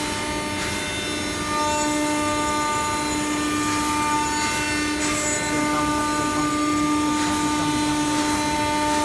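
CNC wood machining centre running, giving a steady hum and whine of several held tones over a noisy rush.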